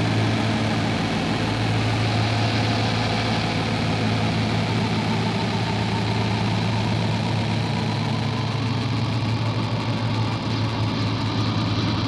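Steady droning noise with a constant low hum underneath, with no beat and no voice.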